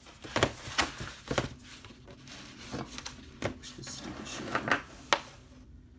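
Handling noises on a desk: a large sheet of poster paper rustling as it is unrolled and pressed flat, with irregular sharp taps and knocks.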